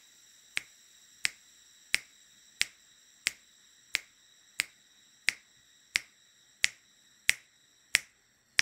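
Metronome clicking a steady beat, about one and a half clicks a second.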